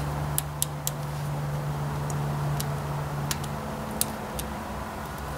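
Scattered small clicks and ticks as a wire connector is worked loose from an ignition coil terminal by hand, over a steady low hum that stops about two-thirds of the way through.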